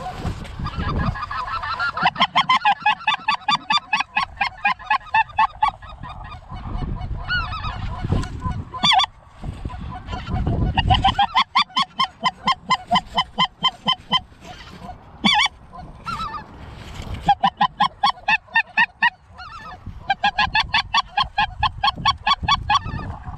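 A goose call blown in rapid runs of honks and clucks, about five or six notes a second, with a few sharp rising notes between the runs. The calling is working a goose circling overhead.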